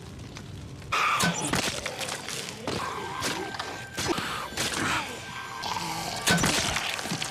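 TV drama soundtrack from a fight scene: music under a run of sudden thuds and smashing impacts, starting abruptly about a second in.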